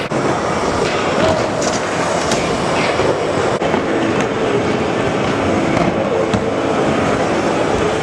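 Wheels rolling over skatepark concrete: a steady rolling noise with a few sharp clacks as the wheels cross joints and edges.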